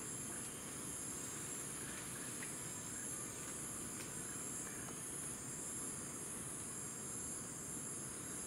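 Steady, high-pitched chorus of insects, unbroken throughout, over a low even hiss.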